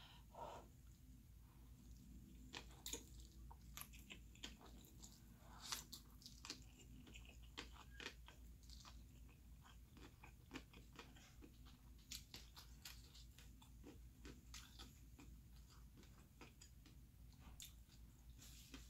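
Faint close-miked chewing of food: irregular wet mouth clicks with now and then a crunch.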